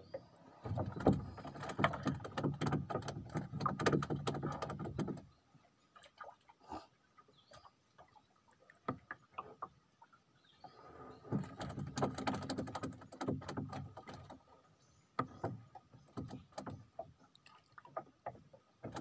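Knocks and splashing around a small wooden boat on the water, in two stretches of a few seconds each, starting about a second in and again about eleven seconds in, with scattered single clicks between them.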